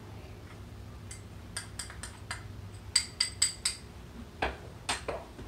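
Spoon tapping and clinking against a mesh sifting screen over a mixing bowl while dry cake ingredients are sifted. A few light taps come first, then four quick ringing clinks about three seconds in, then two or three duller knocks near the end.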